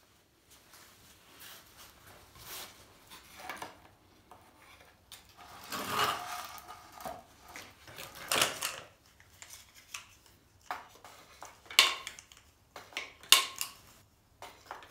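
Cartridge tubes being handled and loaded into a wooden launcher's magazine: rubbing and rattling as they are picked out of a plastic tub, then several sharp clacks in the second half as tubes knock against each other and the frame.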